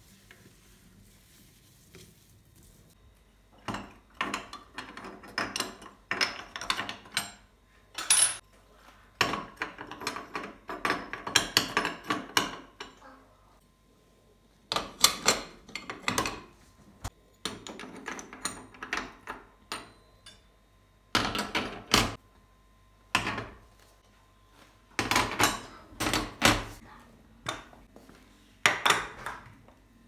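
Metal gas burner caps and burner parts being set back onto a gas hob, clinking and clattering in irregular bursts with short pauses, starting about four seconds in.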